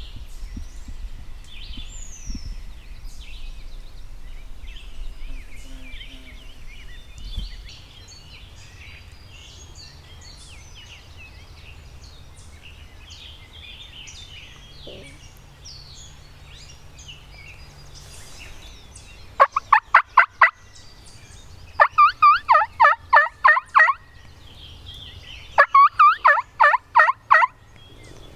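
Turkey gobbling: three loud, rapid rattling gobbles in the second half, over songbirds chirping.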